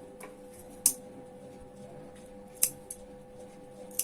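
Tailor's scissors snipping fabric: a few short, sharp snips, the loudest about a second in and another near the middle, over a steady hum.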